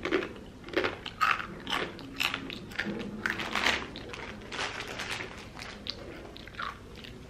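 Crunchy corn crackers being bitten and chewed: a run of irregular crunches, most frequent in the first few seconds, then thinning out.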